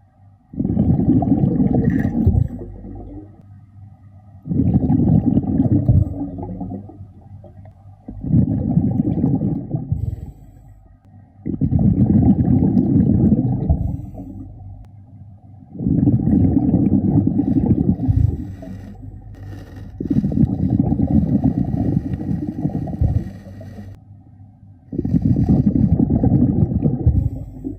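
A diver's exhaled breath bubbling out of the breathing regulator underwater in low bursts. There are about seven of them, one every four seconds or so, with quieter gaps between as the diver breathes in.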